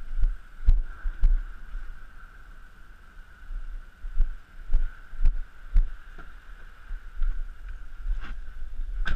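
Muffled thumps of footsteps and handling picked up by a body-worn action camera, some coming about every half second, with a faint steady high-pitched whine underneath.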